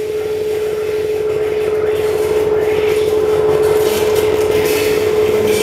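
Electronic drone for an animated title sequence: a single steady held tone under a grainy, rasping noise texture.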